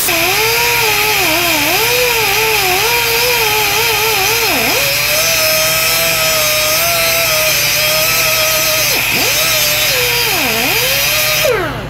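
Pneumatic cut-off tool with a small abrasive disc cutting into a rusted axle bearing cage to loosen the seized bearing. Its whine dips in pitch several times as the wheel bites under load, then spins down just before the end.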